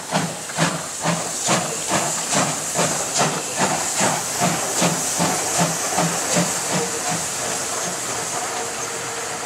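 Two coupled steam locomotives working a train away, with sharp exhaust chuffs about two and a half a second over a steady steam hiss. The chuffs die away about seven seconds in, leaving a steady rolling rumble and hiss.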